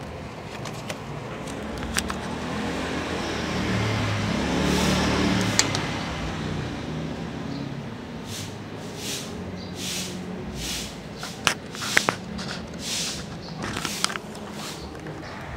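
A motor vehicle's rumble swells and fades about five seconds in, as it passes. After that come a run of sharp clicks and scrapes close to the microphone.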